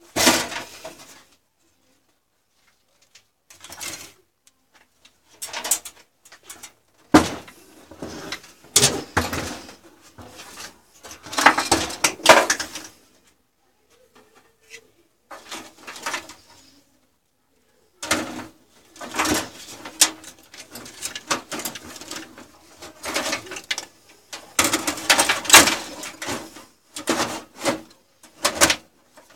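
A motherboard being handled and fitted into a steel PC tower case: irregular spells of knocks, clatter and scraping, with short quiet gaps between them.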